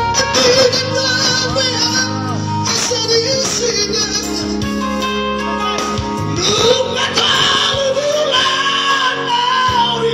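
Male vocal trio singing live through microphones over an instrumental backing. Two voices hold long notes with vibrato, as in a long-note (tarik) contest between the first and third voices.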